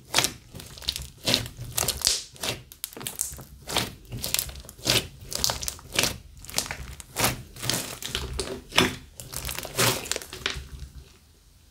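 Hands squeezing and kneading a big lump of glitter slime: a run of squelches and crackling clicks, about two a second, tailing off near the end.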